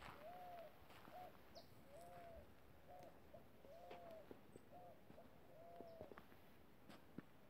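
A dove cooing softly: a steady series of rounded coos, roughly one or two a second, some longer and some shorter.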